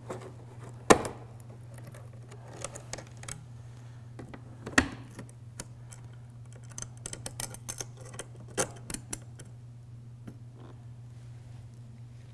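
Small metal clicks and taps as screws are backed out of a chrome motorcycle windshield trim with a hand driver and the trim is lifted off the fairing. There are two sharper knocks, about one second in and near five seconds, and a quick run of light clicks around seven to nine seconds, over a low steady hum.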